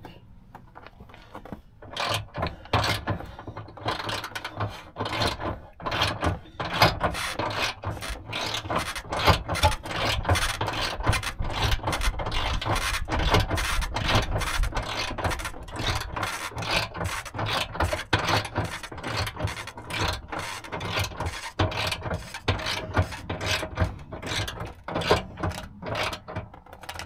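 Land Rover underbody spare tire winch being cranked by hand, ratcheting and clicking with each turn as it hoists the spare tire up under the vehicle. The clicks begin about two seconds in and keep up a steady run of about two or three a second.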